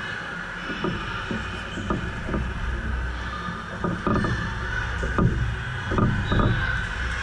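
Echoing sports-gym background: a steady crowd murmur with about ten irregular thumps and knocks, the loudest around the middle and second half.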